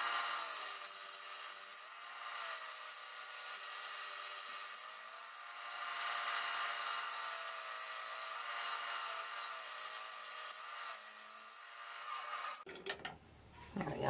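Turning tool cutting the face of a spinning softwood blank on a wood lathe: a steady hissing cut as shavings peel off, which stops abruptly about thirteen seconds in.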